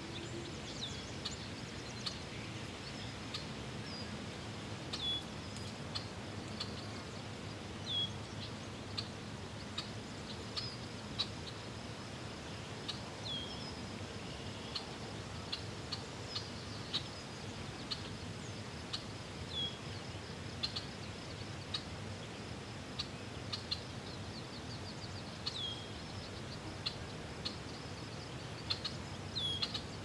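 Birds chirping: many short, high calls, several with a quick downward hook, scattered over a steady background hiss.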